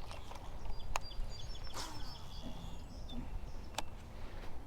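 Small birds chirping in short high notes over a steady low rumble, with a couple of sharp clicks about a second in and near the end.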